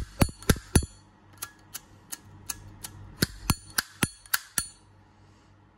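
Zippo lighter handled: a quick run of about fifteen sharp metallic clicks, each with a short ring, typical of the hinged lid being flipped open and snapped shut against its cam.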